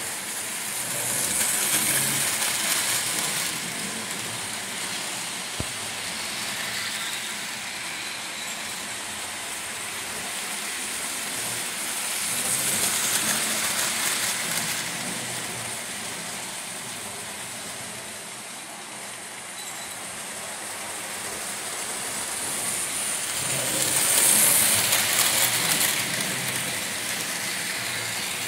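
Model trains running on the layout's track: a steady rolling whir and rail clatter that swells three times, about every eleven seconds, as trains pass close by.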